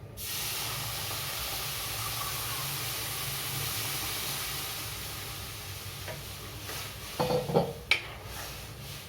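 Water poured into a hot kadhai of fried ground dal, hissing and sizzling as it hits the hot oil and pan, starting abruptly and slowly dying down. A few utensil clinks against the pan near the end.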